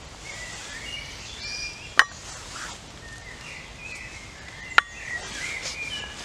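Small birds chirping in short, repeated calls over a steady outdoor hiss, with two sharp clicks, one about two seconds in and one near five seconds.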